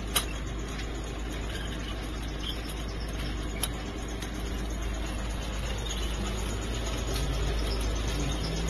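Gas-heated pita bread tunnel oven running with its stainless-steel plate-chain conveyor: a steady mechanical noise, broken by a sharp click just after the start and a smaller one about three and a half seconds in.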